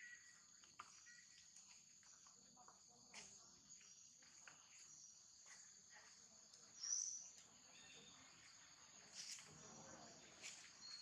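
Faint, steady high-pitched chirring of insects, with a few short bird chirps over it, one louder about seven seconds in.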